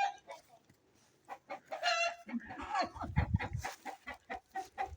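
Chickens clucking, with a loud drawn-out call about two seconds in and a run of short clucks through the second half. A brief low rumble comes about three seconds in.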